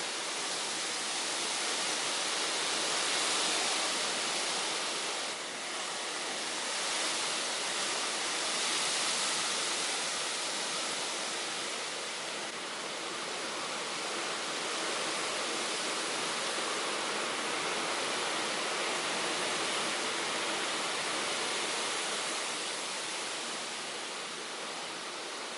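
Summer storm: a steady rushing hiss that swells and eases gently.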